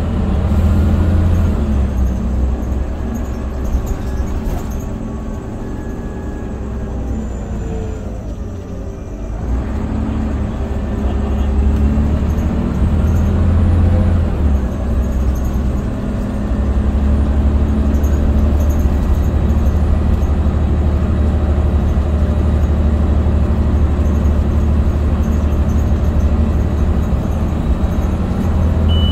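Scania Omnicity bus's diesel engine and road noise, heard from inside the cabin as a steady low drone. A few seconds in, the engine note falls away as the bus slows. It then picks up again and runs steadily through the second half.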